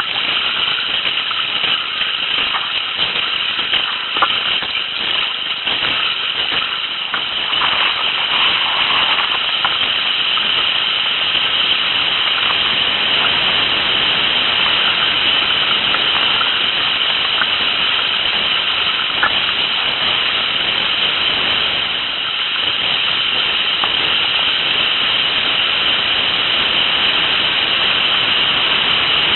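Rushing whitewater of river rapids heard from a kayak on the water, a steady loud hiss that grows louder about eight seconds in.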